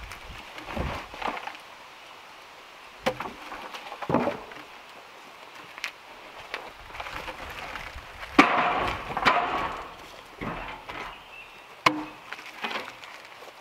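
Pieces of sawn log and wood slabs handled by hand, giving sharp wooden knocks and clatter. There is a knock about three seconds in, the loudest knock about eight seconds in, and another near the end.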